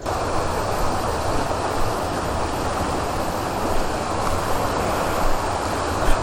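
Waterfall: a steady rush of falling water that starts abruptly at the beginning and holds even throughout.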